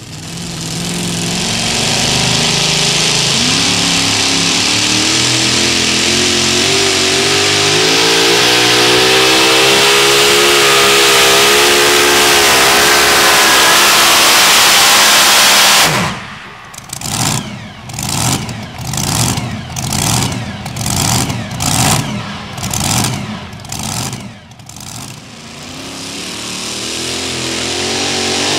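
Supercharged pulling-truck engine at full throttle dragging a pulling sled, its pitch climbing slowly for about fifteen seconds before cutting off suddenly. Then an engine is revved in short blips about once a second, and it throttles up steadily again near the end.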